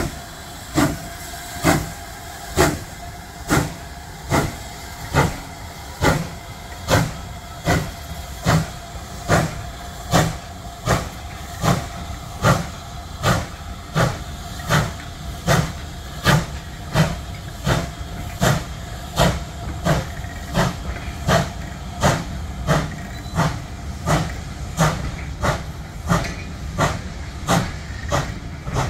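Steam locomotive pulling a train away, its exhaust beats about one and a half a second and quickening slightly as it gathers speed, over the steady rumble of coaches rolling past.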